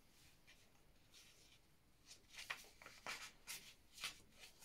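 Small scissors cutting paper: faint, short snips, roughly two a second, starting about two seconds in.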